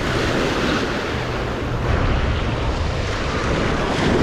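Strong wind buffeting the microphone with a steady low rumble, over the wash of small sea waves breaking on the beach.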